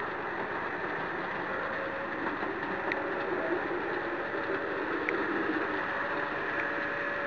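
HO scale model diesel switcher running along its track: a steady hum from its electric motor and wheels, swelling a little partway through, with a couple of faint clicks. The model has no sound decoder, so the hum is the mechanism itself.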